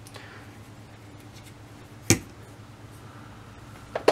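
A low, steady hum under a quiet workbench, broken by one sharp knock about two seconds in and another click right at the end.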